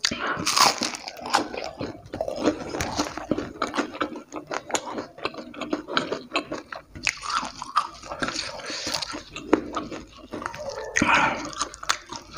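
A bite into a crispy battered fried egg smothered in chili sambal, followed by steady crunching and wet chewing with many small crackles.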